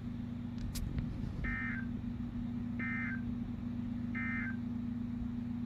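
Emergency Alert System (SAME) end-of-message code: three short, identical bursts of two-tone data warble about 1.3 seconds apart, signalling that the flash flood warning broadcast has ended. A steady low hum runs underneath.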